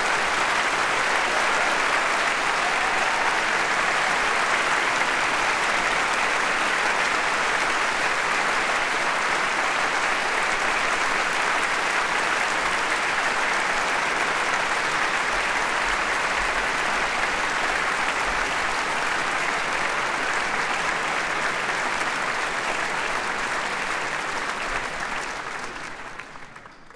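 Large concert-hall audience applauding steadily at the end of a performance, fading out near the end.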